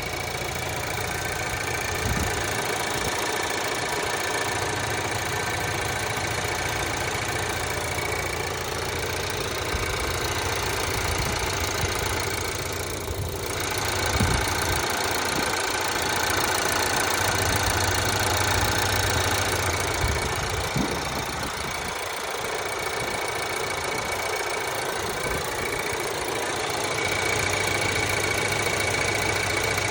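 Changan CS55 Plus engine idling steadily with a knock, which the owner records as a fault on a car with only about 8,000 km at +3 °C.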